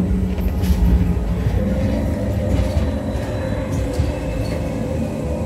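Ghost-train dark ride car rumbling along its track, with a few clicks in the first second. A steady hum joins about a second and a half in.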